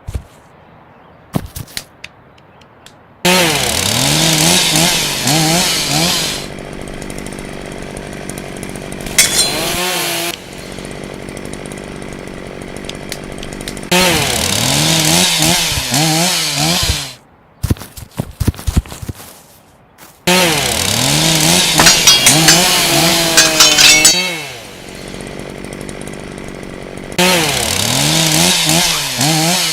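Chainsaw revving in several long bursts, its pitch rising and falling again and again, with abrupt starts and stops between bursts. A few sharp clicks come in the first two seconds.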